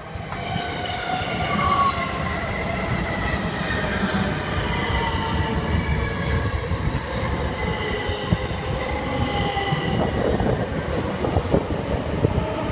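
A c2c Class 357 Electrostar electric multiple unit running in along the platform, its rumble with a whine of several tones slowly falling in pitch. Near the end come sharp clicks from the wheels over the track.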